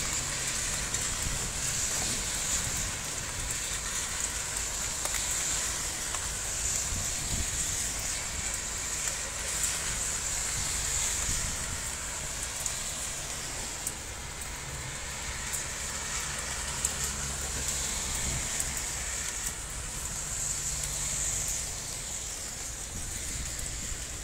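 Heavy rain pouring steadily in a storm, with wind gusting on the microphone as a low rumble.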